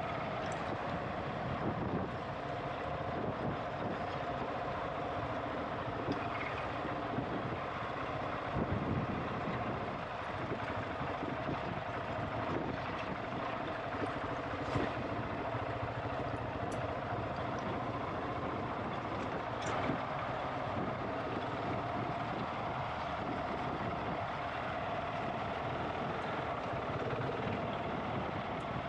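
GasGas ES700 enduro bike's single-cylinder four-stroke engine running steadily on a trail ride, with a few sharp clicks and knocks scattered through it.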